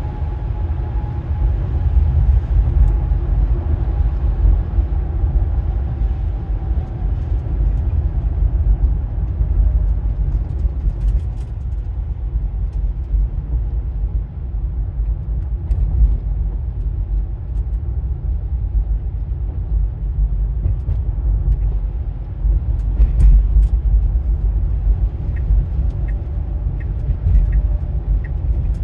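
Road and tyre noise heard inside the cabin of a 2024 Tesla Model Y driving on a wet, icy road: a steady low rumble, with faint regular ticks near the end.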